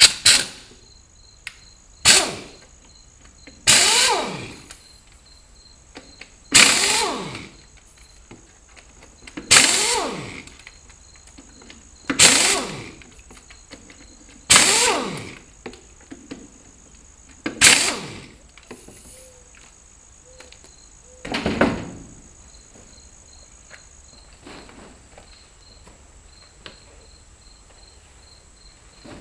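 Heavy blows struck on a tractor tire and wheel while mounting it on a manual tire changer, about nine strikes two to three seconds apart, each with a short ring that drops in pitch. Crickets chirp steadily throughout.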